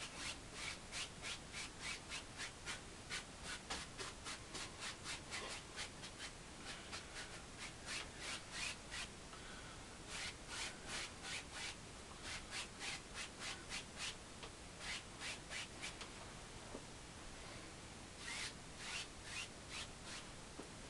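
Bristle brush scrubbing oil paint onto a canvas in quick, rhythmic back-and-forth strokes, about three a second, with a few short pauses.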